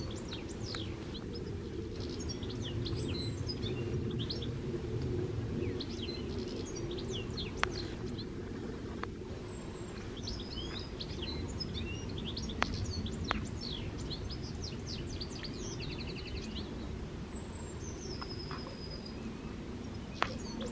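Several songbirds chirping and trilling on and off, over a steady low rumble of wind on the microphone. A few sharp clicks stand out, one each about a third of the way in, near the middle and near the end.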